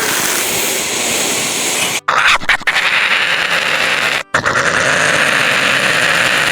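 American badger's call: a noisy, hissing growl in three long bouts, broken by short pauses about two seconds and four seconds in.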